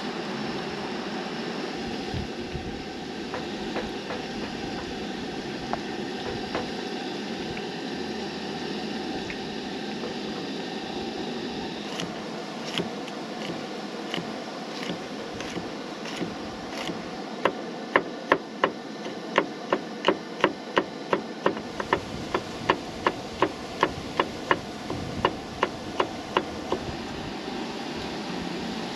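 Knife chopping garlic on a wooden cutting board: a run of sharp knocks, about two to three a second, starting about halfway through and loudest near the end. Under it runs a steady hiss from the propane camp stove and the pan.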